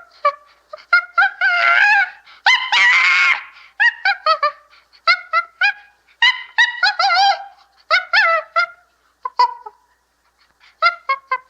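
Chimpanzee calling: a rapid series of short, high hooting calls, broken by two longer, louder, rougher screams about two and three seconds in.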